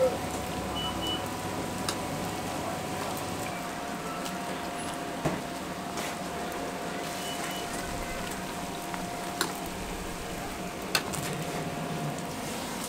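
Youtiao (Chinese fried dough sticks) sizzling steadily in a deep pan of hot oil, with a few sharp clicks of metal tongs against the steel pan as they are turned. A faint steady hum runs underneath.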